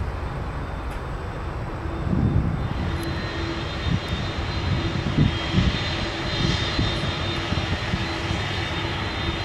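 Airbus A330's twin turbofan engines running as the airliner rolls past close by: a steady rumble, joined about two seconds in by a high whine and a lower hum.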